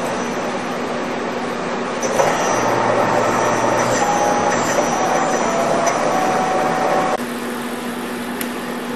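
CNC universal bed milling machine running: a steady mechanical rush with a constant hum and shifting whining tones. It steps up in loudness about two seconds in and drops back about seven seconds in.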